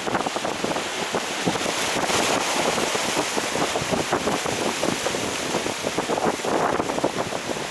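Wind buffeting the microphone over the steady wash and splash of seawater.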